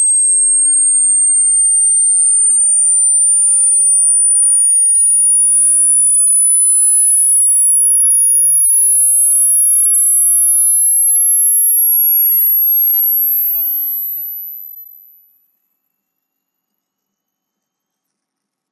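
Loud, electronically generated pure sine tone, very high-pitched, gliding slowly upward from about 8 kHz to about 13 kHz, then cutting off suddenly near the end.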